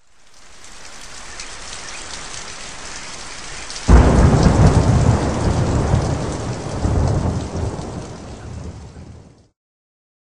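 Steady rain fading in. About four seconds in, a sudden loud thunderclap breaks and rolls on in a low rumble that swells and dies away before stopping abruptly near the end.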